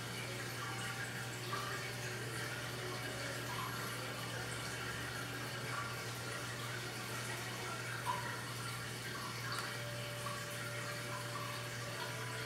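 Steady background hiss with a constant low hum and a few faint brief ticks: room tone.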